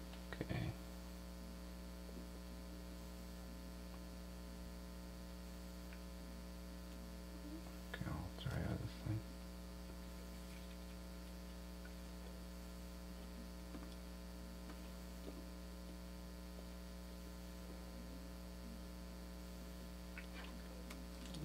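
Steady electrical mains hum with many even overtones, broken by a few short, soft handling noises just after the start and again about eight seconds in.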